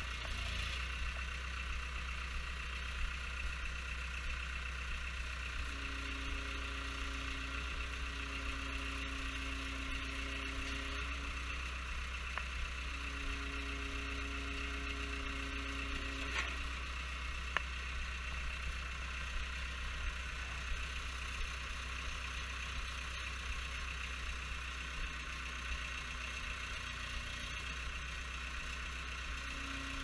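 Caterpillar 262B skid steer's diesel engine running steadily. A higher steady tone joins it twice in the middle, with a few light clicks.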